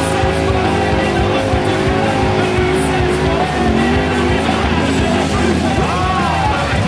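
A Formula Offroad buggy's engine revving hard as it climbs a steep dirt hill, its pitch wavering, with a rev that rises and then falls near the end. Music plays with it.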